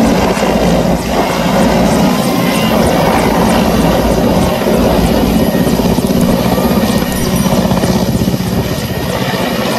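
Indian Air Force helicopter hovering close overhead, its rotor giving a loud, steady, rapid chop.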